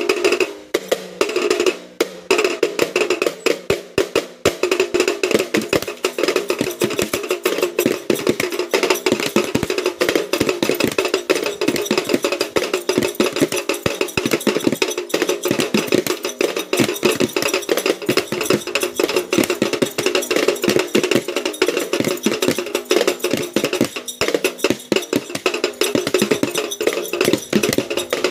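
Boys beating small toy drums and a larger drum with sticks in a fast, dense, unbroken rhythm, imitating a Kerala chenda melam.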